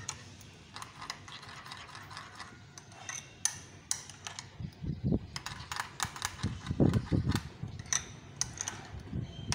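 A spoon stirring yogurt raita in a cut-glass bowl: repeated light clicks of the spoon against the glass, with a few dull knocks between about five and seven and a half seconds in.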